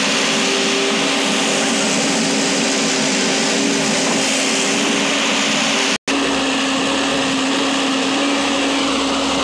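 Backhoe loader's diesel engine running steadily under load with a constant hum while the machine digs and swings its bucket of soil. The sound breaks off for an instant about six seconds in, then carries on unchanged.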